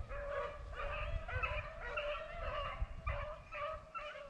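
Rabbit-hunting beagles baying in repeated, overlapping calls as they run a rabbit's track, a sign the scent is fresh ("hot").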